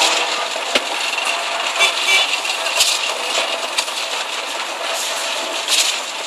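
Steady machinery noise from a concrete pour, with the concrete boom pump and truck mixer running, broken by scattered sharp clanks and rattles.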